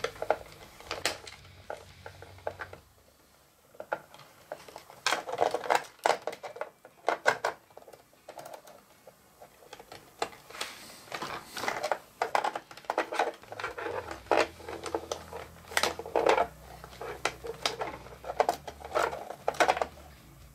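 Irregular clicks, taps and rustles of plastic parts and wires being handled: wire plugs are worked loose from the RC tank's circuit board and the plastic turret ring gear is moved about. The clicks come in clusters, with a short quiet pause a few seconds in.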